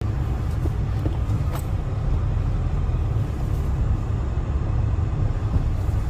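Cabin noise inside a moving BMW car: a steady low rumble from the engine and tyres as it drives slowly.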